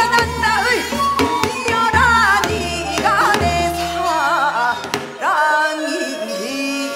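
A woman singing a Gyeonggi folk song (Gyeonggi sori) with wide, shaking vibrato and sliding pitch, over drum accompaniment.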